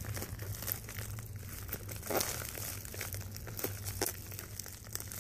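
Plastic padded poly mailer crinkling and crackling in irregular bursts as fingers pick at and pull its sealed end, trying to tear it open by hand without it giving way.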